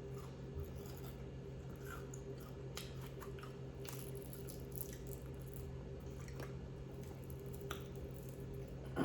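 Close-up chewing and biting of crunchy fried chicken: scattered wet mouth clicks, smacks and crunches over a steady low hum, with a louder sound at the very end.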